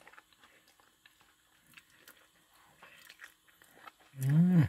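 Faint close-up mouth sounds of someone eating shrimp and fried rice: soft chewing with small wet clicks, then a short loud voiced sound from the eater near the end, its pitch rising then falling.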